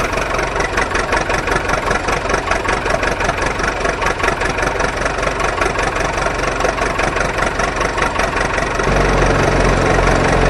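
Engine idling with a steady, rapid chugging; about nine seconds in it changes to a deeper, smoother drone.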